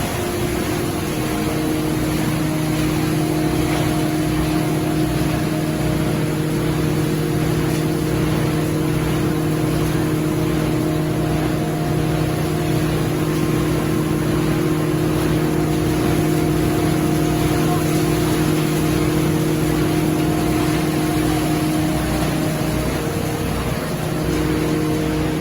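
Factory production-line machinery running: a steady mechanical drone with several humming motor tones, a few of which shift in pitch about a second in and again near the end.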